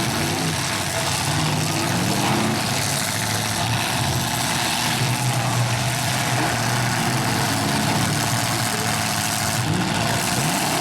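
V8 engines of stock demolition derby cars running and revving, the pitch rising and falling repeatedly over a steady wash of noise.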